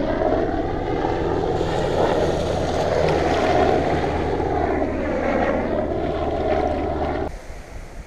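An engine droning steadily with a low hum and a pitch that sways up and down, cutting off suddenly about seven seconds in.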